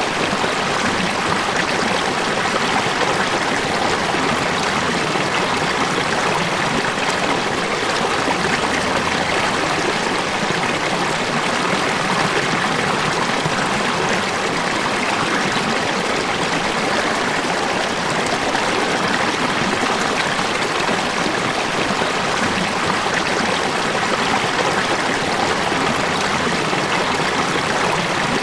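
River water flowing steadily over rocks, a continuous even rushing and burbling.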